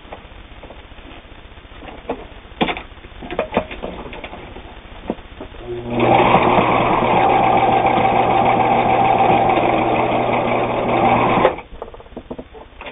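A Viking Husqvarna Optima 150 sewing machine stitches through four layers of denim at a steady speed for about five and a half seconds, then stops abruptly. It runs through the heavy fabric without labouring. Light clicks and knocks come before it starts.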